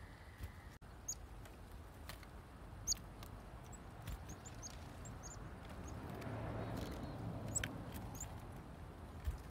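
Chickadees giving short, high chip calls scattered through, with light clicks among them. A low rumble swells and fades in the background about six to eight seconds in.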